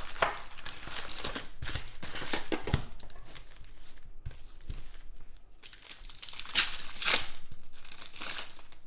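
Foil trading-card packs from a 2017-18 Donruss Optic NBA box crinkling as they are pulled out of the box and handled, with louder crinkling and tearing in the last few seconds as a pack is ripped open.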